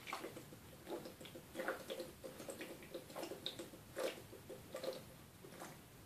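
A person gulping water from a plastic bottle: a series of faint swallows, about one every half second.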